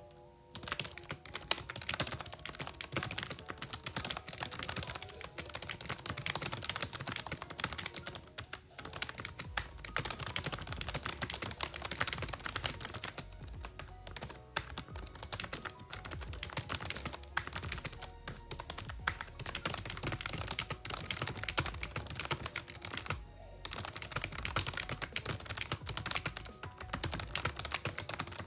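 Fast, continuous typing on a cheap membrane-switch "gaming" keyboard, a steady stream of soft key presses with short pauses about a third of the way in, halfway, and near the end.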